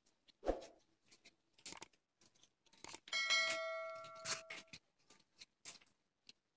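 A bell-like notification chime rings about three seconds in, starting suddenly and fading over about a second and a half, from a subscribe-button animation. Around it, soft rustling and clicks of a fan regulator's cardboard packaging being handled.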